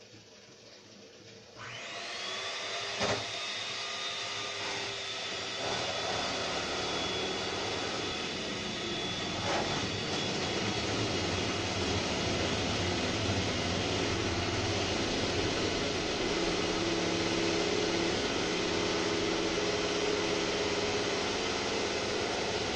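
Electric mixer whipping cream with powdered sugar. The motor starts about a second and a half in with a rising whine, then runs steadily. There is a sharp click about three seconds in and another near ten seconds.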